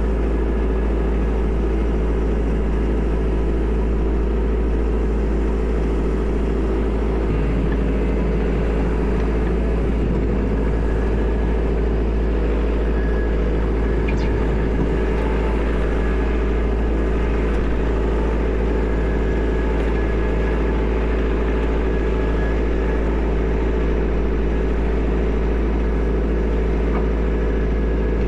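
Kubota L4701 tractor's diesel engine running steadily at a constant pitch.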